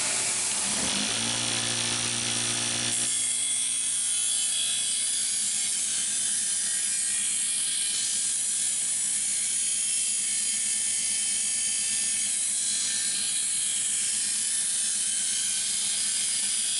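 Six-inch bench grinder running, with steel held against its worn-down small grinding wheel, giving a steady high grinding hiss. The motor's hum is plainer for the first three seconds or so, then the grinding hiss dominates.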